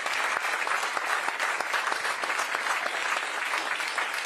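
Audience applauding steadily as a speaker is welcomed to the microphone, dense clapping that fades out shortly after.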